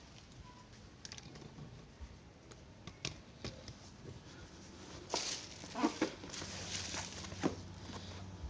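Thin black plastic courier bag rustling and crinkling in bursts as a boxed cordless drill is pulled out of it, starting about halfway through, after a few faint clicks and handling knocks.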